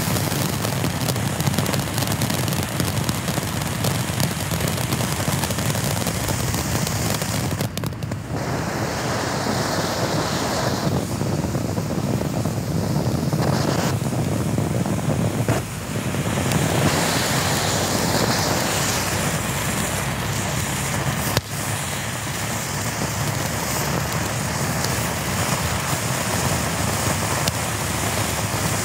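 Black Cat "Shut Up!" low-noise fountain firework spraying sparks, a steady hiss. The hiss briefly dips and changes character three times as the fountain moves on to new effects.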